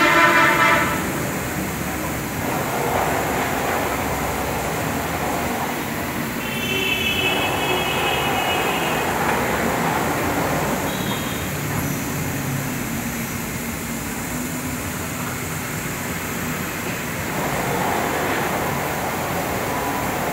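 Steady mechanical hum of running machinery, with a brief high-pitched whine right at the start and another lasting a couple of seconds about seven seconds in.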